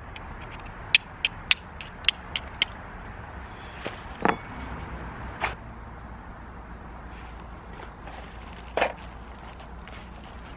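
Steel striker clicking against a sharp-edged piece of red jasper, six quick sharp strikes in the first three seconds, then a few scattered knocks and rustles.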